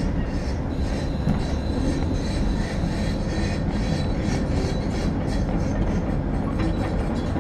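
Diesel railcar heard from inside the cabin as it pulls into a station: a steady running rumble of the engine and wheels on the rails, with a few light clicks.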